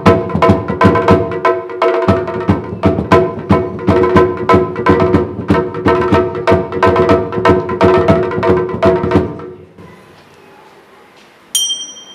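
Live stage accompaniment: fast hand-drum strokes on a barrel-shaped drum over steady held melodic notes, stopping about nine and a half seconds in. Near the end a single bright metallic strike rings on briefly, like a small bell or cymbal.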